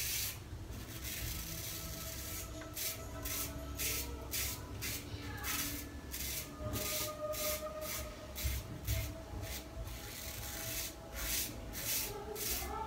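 A Muhle R41 double-edge safety razor scraping through shaving lather and stubble on a scalp, in quick runs of short strokes at about three a second.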